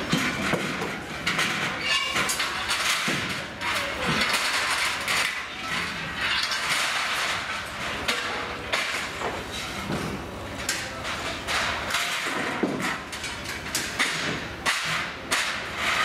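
Irregular metal clanks and knocks from a funfair ride being taken apart, its parts handled and struck, over a constant background noise.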